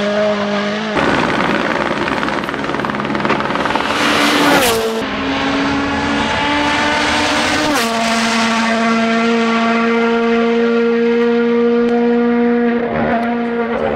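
Rally cars' engines running hard at high revs, each note held fairly steady. There is a brief drop in pitch about five seconds in. The sound changes abruptly a few times as separate passes are cut together.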